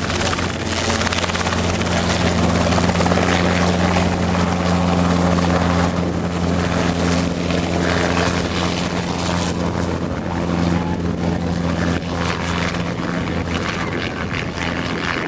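Helicopter running close by: a steady low rotor drone with a dense rushing noise over it.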